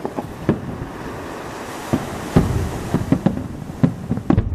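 Fireworks display: aerial shells bursting in an irregular series of sharp bangs over a continuous rumble, the bangs coming thicker and faster in the second half.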